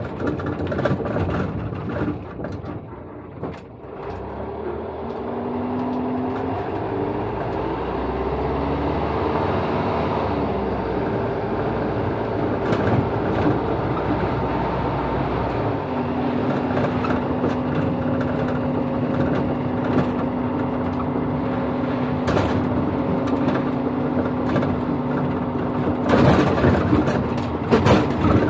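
Dual Mode Vehicle (a Toyota Coaster microbus converted for road and rail) running in road mode, heard from inside the cab. The engine drops low for a moment, then picks up as the bus drives on and runs steadily. From about halfway through a steady whine joins in, and a louder rush comes near the end.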